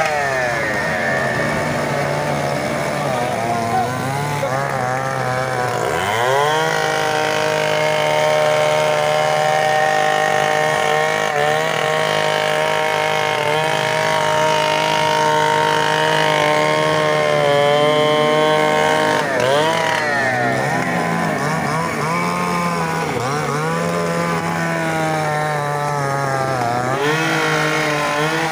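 Chainsaw cutting up a fallen tree, running at high revs, with its pitch dropping and climbing back a few times.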